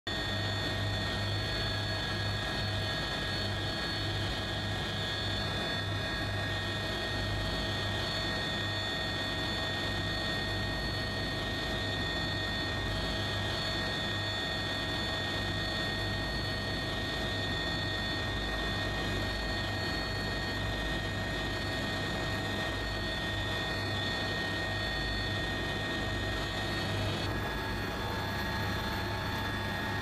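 Steady helicopter noise heard from on board the aircraft: a low, pulsing rotor beat under a constant turbine whine. The whine's higher tones change abruptly a few seconds before the end.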